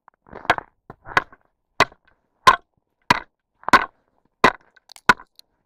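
Steel ice chisel striking frozen pond ice again and again to chop a fishing hole: eight sharp blows, about one and a half a second. The ice is hard after heavy frosts and the hole is not giving.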